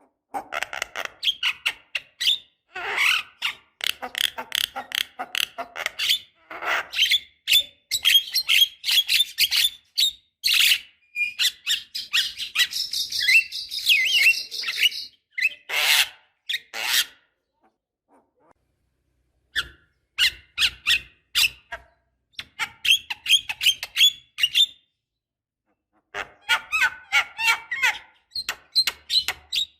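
Javan myna (jalak kebo) chattering: fast runs of harsh, clicking and squawking notes, mixed with some higher whistled notes. It stops twice for a second or two, once past the middle and once near the end.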